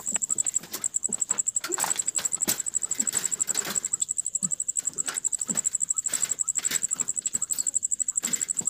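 Crickets chirping in a steady, rapid high-pitched pulse, with scattered short rustles and knocks over it.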